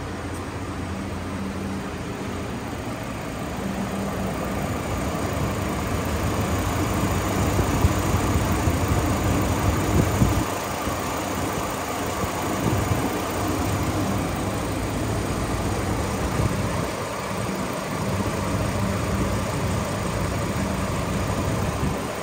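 2008 Hummer H3's 3.7-litre inline five-cylinder engine idling steadily.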